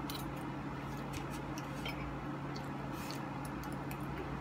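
Eating sounds: scattered light clicks of a spoon and fork against ceramic plates, and chewing, over a steady low hum.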